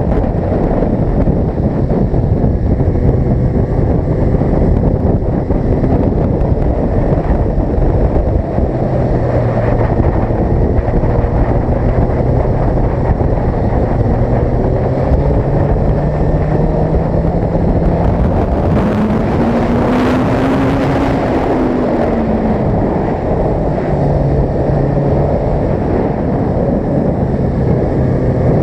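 Sport motorcycle engine running under way, buried in heavy wind noise on the camera microphone. The engine note climbs slowly, rises to a higher pitch with a rush of wind about two-thirds of the way through, then drops back.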